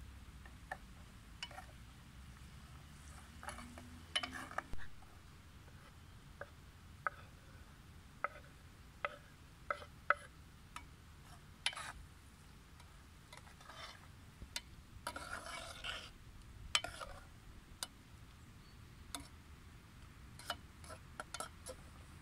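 Sparse, irregular clicks and taps of a spoon against a small metal pot while stirring food over a wood fire, with a longer scraping stretch about fifteen seconds in.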